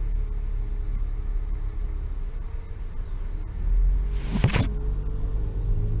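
Car engine and road rumble, steady and low, with a brief louder rushing sound about four and a half seconds in.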